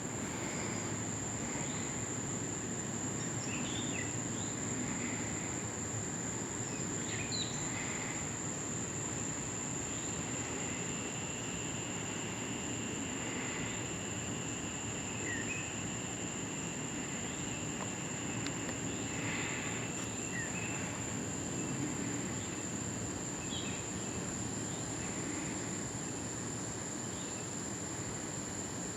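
Crickets chirring in one steady high tone over a low, even rumble, with a few short bird chirps scattered through.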